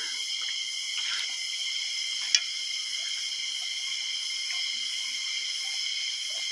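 Steady shrill chorus of insects, droning in several high pitches at once, with a single sharp click a little over two seconds in.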